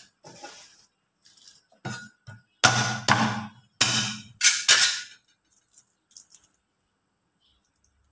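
Cleaver blade striking garlic cloves on a thick wooden chopping block, crushing them: about seven sharp knocks with a slight metallic ring between two and five seconds in, then a few small clicks.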